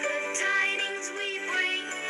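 Background music: a melody over sustained chords.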